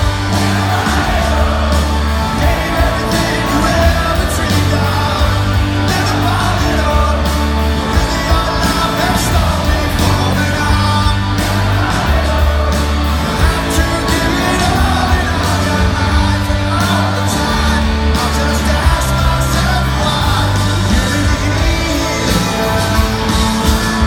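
Live rock band playing in a large hall: electric guitars, bass and drums under a sung lead vocal, loud and continuous, heard from within the audience.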